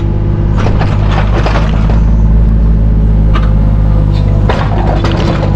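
John Deere 27D mini excavator's diesel engine running steadily under load, with bursts of crunching and scraping as the bucket digs through sticky clay soil. The scraping is heaviest from about half a second to two seconds in and again near the end.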